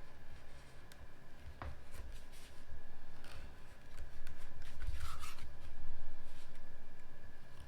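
Scissors cutting scrap leather in a few separate short snips, with handling rustle between them.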